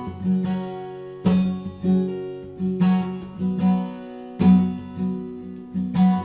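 Acoustic guitar strummed in an instrumental passage, its chords ringing between strokes. Heavier strums come about a second in and again past four seconds.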